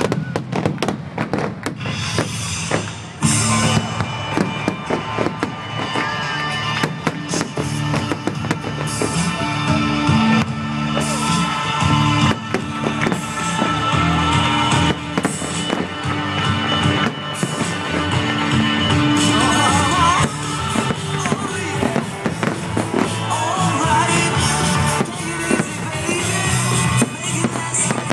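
Aerial fireworks bursting in quick succession, many sharp bangs and crackles, over music that plays throughout.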